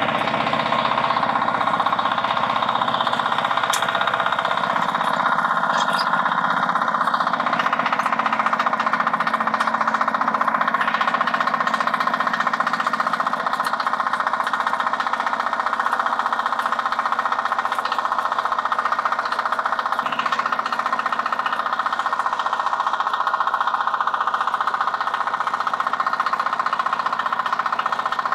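Two-wheel walking tractor's engine running steadily with a hard, knocking chug as it pulls a plough through a potato row to lift the potatoes.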